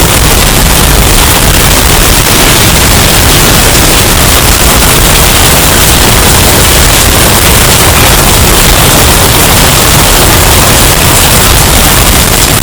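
Hurricane wind sound effect, bass-boosted and overdriven until it clips: a steady, very loud wall of distorted noise with no breaks or separate gusts.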